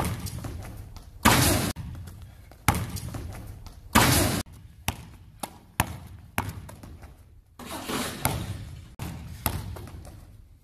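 Basketball bouncing on a hard gym floor and the rim and backboard banging as the ball is dunked: a series of loud, irregular impacts, each echoing in a large hall.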